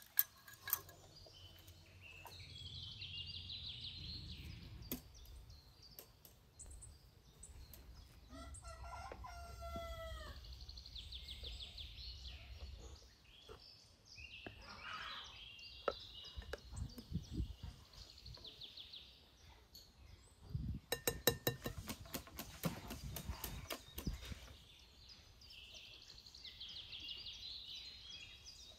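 A rooster crows once, about a third of the way in, over small birds chirping. A quick run of clicks comes about three-quarters of the way through.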